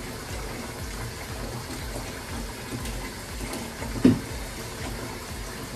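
Kitchen faucet running steadily into the sink as a dog is washed under it, with one brief louder sound about four seconds in.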